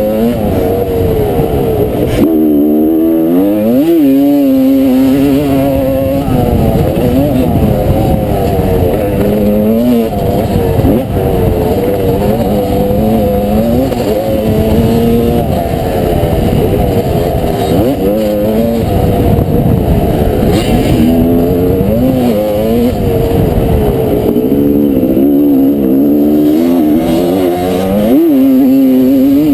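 The single-cylinder two-stroke engine of a 1989 Honda CR250R motocross bike, racing on a dirt track and heard close up from the bike. It revs up and drops back again and again as the throttle is opened and shut.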